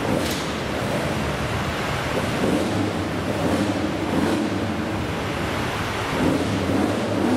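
Classic car engine running with a low, uneven rumble under a steady wash of noise.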